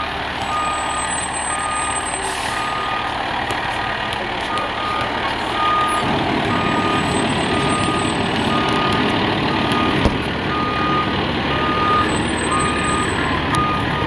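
Fire engine backing up, its reverse alarm beeping in a steady repeated pattern over the diesel engine, which grows louder about halfway through. There is a brief knock near the end.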